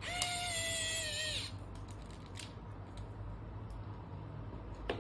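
Pen-style electric precision screwdriver running for about a second and a half, a steady whine that dips slightly in pitch just before it stops, as it drives a tiny M2x6mm screw into a servo bracket. A faint click about halfway through and a sharper click near the end.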